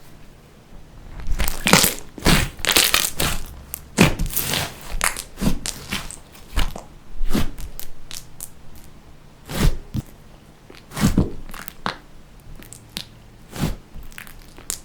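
Hands squeezing and pressing slime, making irregular crackling, crunching pops, some in quick clusters.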